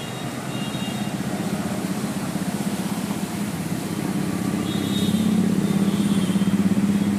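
A motor vehicle's engine running as a steady low hum that grows louder about five seconds in.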